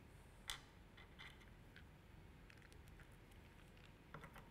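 Faint clicks and light taps of a small screw and screwdriver being set against the tripod's leg foot. One sharper click comes about half a second in, with a few softer ticks after it and again near the end, over near silence.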